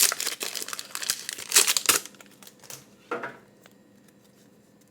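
Foil wrapper of a Pokémon booster pack crinkling and tearing as it is opened, loudest in the first two seconds, then dying down to a few light rustles.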